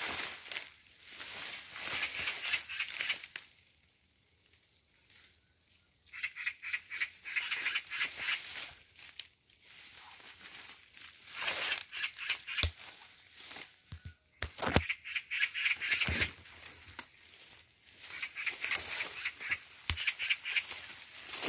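Magpies giving their harsh, rattling chatter, the scolding alarm call, in repeated bouts of about two seconds each with short pauses between them. A few sharp snaps are heard partway through.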